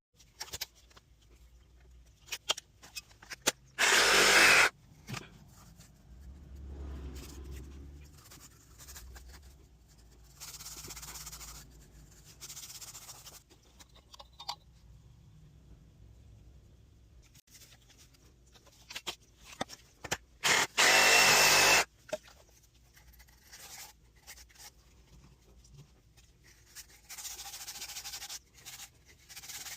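Hand work on PVC water pipe and fittings: scattered clicks and knocks, with two loud, rough noisy bursts of about a second each, one a few seconds in and one about two-thirds of the way through.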